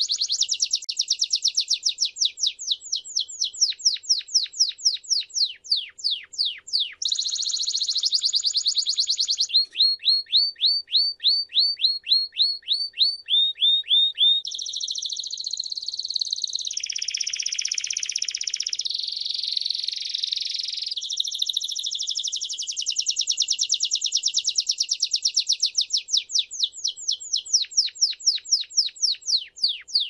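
Timbrado canary singing a long unbroken song of rapid repeated notes. It shifts from fast trills to a slower roll of separate notes about ten seconds in, then to a continuous warbling passage, then back to fast trills.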